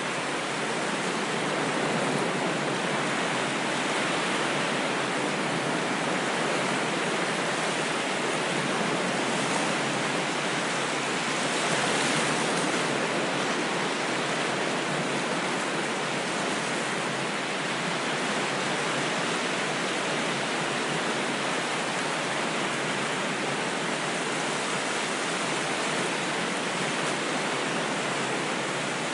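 Ocean waves as a continuous, steady wash of surf, swelling slightly now and then.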